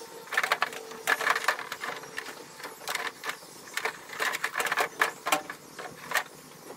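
Yellow-jacketed flexible gas tubing being handled and pushed into place, giving irregular clusters of sharp clicks and rattles.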